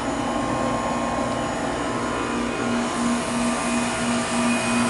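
Heat pump outdoor unit running steadily in freezing weather, with its fan and compressor noise. A low hum comes in about two and a half seconds in and pulses about three times a second.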